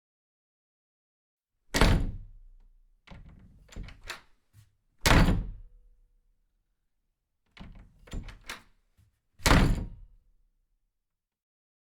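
Three heavy thumps, a little over three seconds apart, each ringing out briefly, with clusters of lighter knocks and clicks between them.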